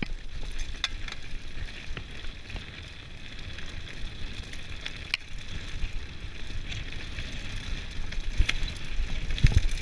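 Mountain bike descending a rough dirt trail: tyres rumbling over the ground, wind buffeting the rider's camera microphone, and scattered clicks and rattles from the bike. The jolts get louder and more frequent near the end.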